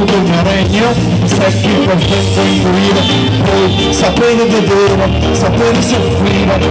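Live band playing: electric guitar and drums over a steady beat.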